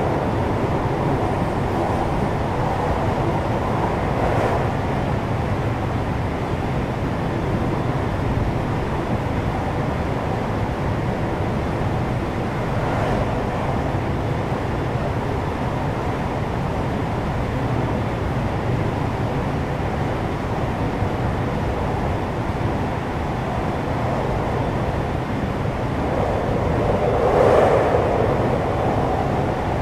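Running noise heard inside a JR West 521 series electric multiple unit, motor car KuMoHa 521: a steady rumble of wheels and running gear on the rails. It swells a little a few times, most clearly near the end.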